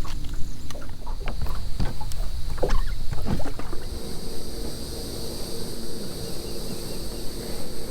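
Sharp knocks and handling sounds on a fishing boat over a steady low rumble of wind and water. From about four seconds in, a steady motor hum with a high whine comes in.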